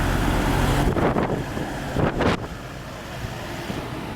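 Wind buffeting the microphone in two gusts, about one and two seconds in, the second the loudest. Under them is the low, steady hum of a running vehicle engine, which drops away after the first second.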